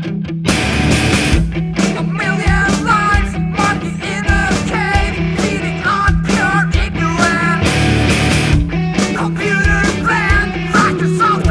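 Post-hardcore rock music: a picked guitar figure gives way about half a second in to the full band playing loud, with distorted electric guitars, bass and drums.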